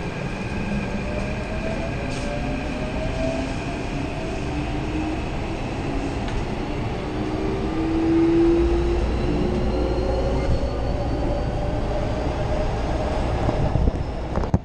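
Keikyu electric commuter train pulling out of a station and accelerating: its motor whine rises steadily in pitch over the running noise of the wheels on the rails. A heavier low rumble joins about halfway through.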